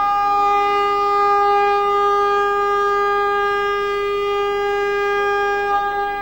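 A long, steady horn- or siren-like tone at one unchanging pitch, held for about six seconds and fading out near the end.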